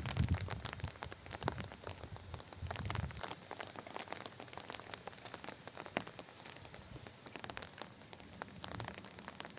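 Rain falling during a thunderstorm, with many separate drops ticking irregularly on a nearby surface. A low rumble underneath stops about three seconds in.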